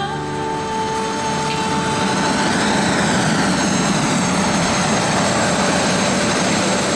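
Eurocopter EC130 helicopter running on its helipad with the main rotor turning: a steady engine and rotor noise.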